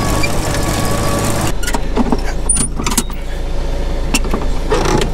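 Tractor engine running while it tows a ground-driven manure spreader through the last of its load, then dropping back to a low idle about a second and a half in. Scattered metal clanks and knocks follow.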